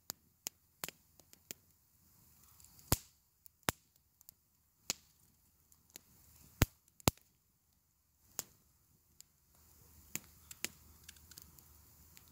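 Small knife cutting pieces off a raw carrot held in the hand: a string of sharp, crisp snaps at irregular intervals, about one or two a second.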